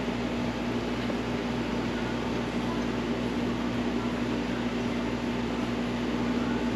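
Steady machine hum with a constant low tone over a smooth whooshing noise, unchanging throughout.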